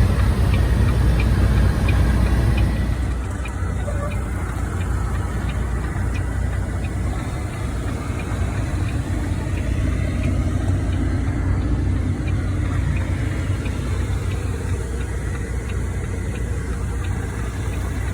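Semi truck's engine running steadily with a low rumble and a faint, regular ticking; it eases slightly quieter about three seconds in.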